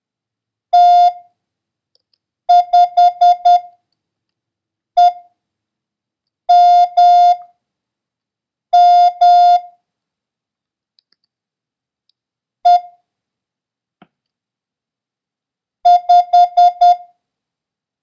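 Morse code practice tone: a single steady beep keyed in short dits and long dahs. It sends the characters T, 5, E, M, M, E, 5, with pauses between the groups.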